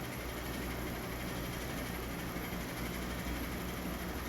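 Steady low hum with an even hiss underneath: room background noise with no distinct event.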